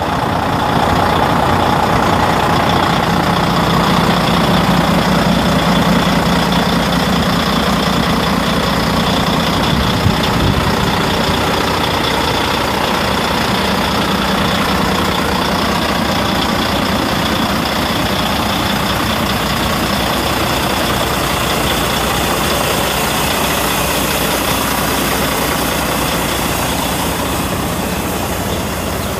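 Volvo D12 12.1-litre inline-six diesel engine of a 2005 Volvo VN semi truck idling steadily, with a single brief knock about ten seconds in.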